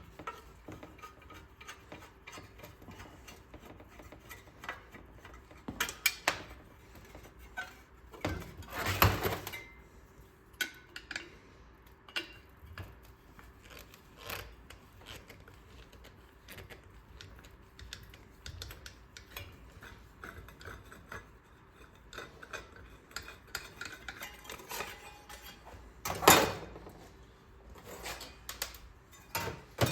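Hand tools and small metal engine parts clinking and clattering during a small-engine teardown: scattered light ticks and knocks, with louder bouts of clatter about six, nine and twenty-six seconds in.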